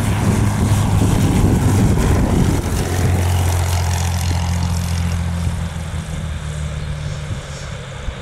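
Cessna 206 single-engine propeller plane landing: it passes close at low power with wind buffeting the microphone for the first couple of seconds, then a steady low engine and propeller hum that fades as the plane rolls away down the runway.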